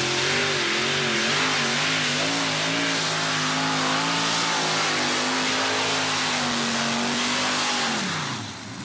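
Multi-engine modified pulling tractor running at full throttle while pulling the brake sled. The engine note wavers for the first few seconds, holds steady, then falls away sharply near the end as the run ends.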